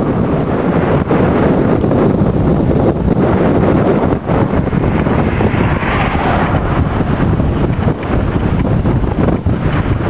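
Wind buffeting the microphone: a loud, steady rumble that never lets up.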